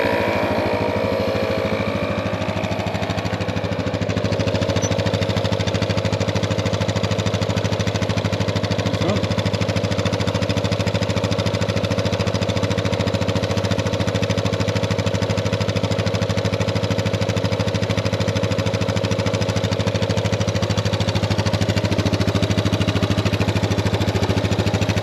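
ARB air compressor running steadily with a fast, even pulsing chatter, inflating a punctured tyre so the leak can be found.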